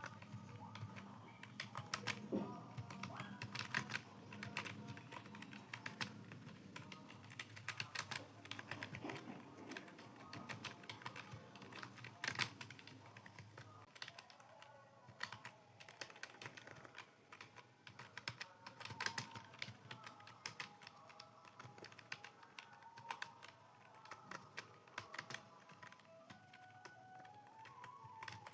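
Computer keyboard typing: a rapid, irregular stream of keystroke clicks, with faint background music.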